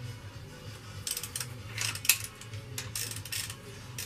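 Hand ratchet clicking in three short runs, about a second apart, as bolts on a diesel engine's cylinder head are worked, with one sharp metal click about two seconds in.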